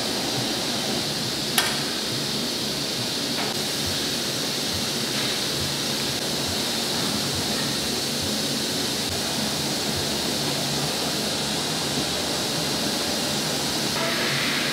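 Steady rushing noise of factory equipment running, with one sharp click about a second and a half in.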